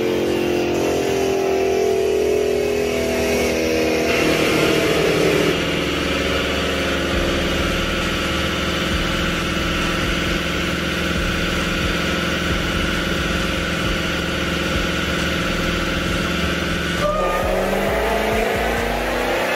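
Supercharged Hemi V8 of a tuned 2020 Dodge Charger SRT Hellcat running on a chassis dyno. Its revs fall away over the first few seconds, hold steady for most of the time, then start climbing again near the end.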